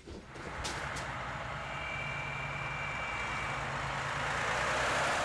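A steady rushing, whirring noise with a faint low hum underneath, growing slowly louder and then cut off abruptly.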